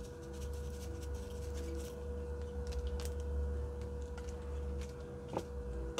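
Black pepper being shaken from a small shaker over fish in a steel bowl, making faint scattered ticks. A steady high hum runs underneath, and there is a single knock near the end.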